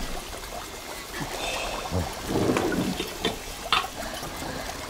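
Liquid trickling through glass lab apparatus, with three short light clicks about three seconds in.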